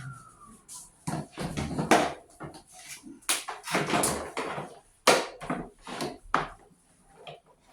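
An irregular series of sharp knocks and clacks, about a dozen, with short quiet gaps between them, as hard objects are handled and set down.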